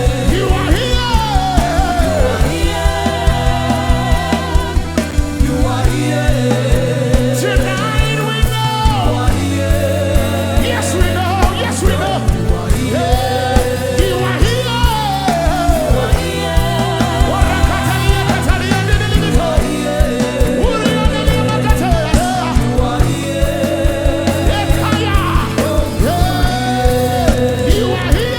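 Live gospel worship music: a band with a steady drum beat and bass under a singer's melismatic, vibrato-laden vocal lines.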